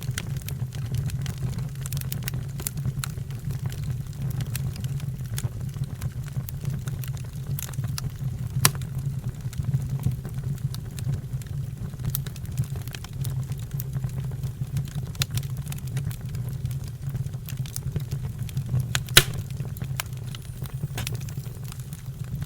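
Wood fire burning with a steady low rumble and frequent small crackles, and two sharper pops, about nine and nineteen seconds in.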